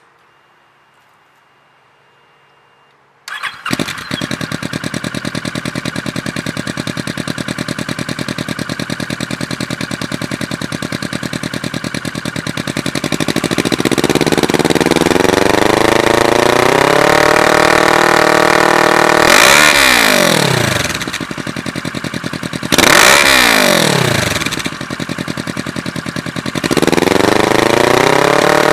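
2009 Kawasaki Versys 650's parallel-twin engine exhausting through a 16-inch glasspack muffler with a slash tip. It starts about three seconds in and idles steadily, then rises to a higher steady speed. It is revved sharply twice, the pitch falling back each time, and is held at a raised speed again near the end.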